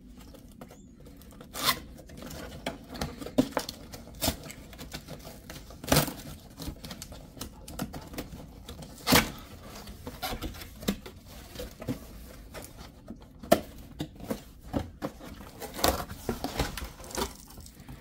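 Cardboard box being opened and handled: flaps pulled open and packaging moved about, with scattered rustles and scrapes and several sharp cardboard clicks and snaps.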